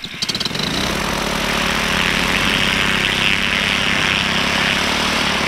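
Paramotor engine running, rising over the first second and then holding at a steady pitch.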